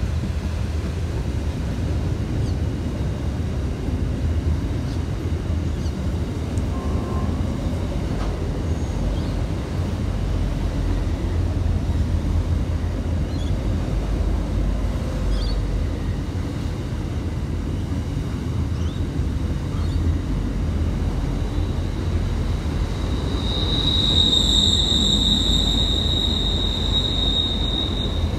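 Container freight train rolling past, a steady low rumble of the wagons on the rails. About three-quarters of the way through, a high, steady squeal sets in and holds to the end.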